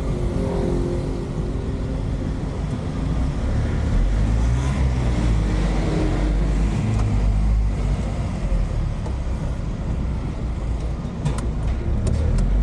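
JAC box truck's diesel engine heard from inside the cab, running as it drives through a turn, with the revs picking up and louder from about four seconds in. A few sharp clicks near the end.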